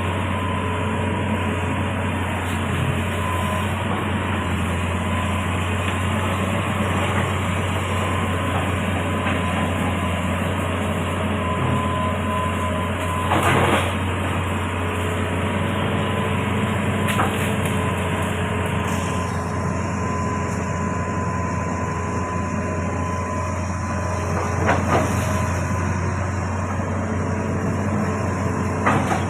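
Amphibious excavator's engine running steadily with a deep hum, with a few short knocks from the machine now and then.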